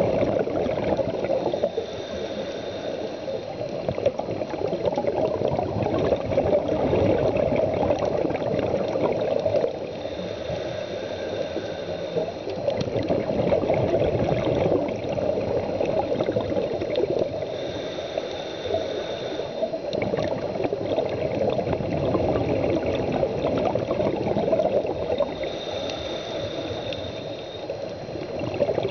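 Scuba regulator breathing heard underwater: a hissing inhale about every eight seconds, between long gurgling rushes of exhaled bubbles.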